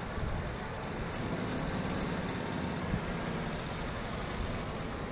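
Engines of World War II military vehicles, an army jeep and a military motorcycle, running at slow parade pace with a steady low engine note.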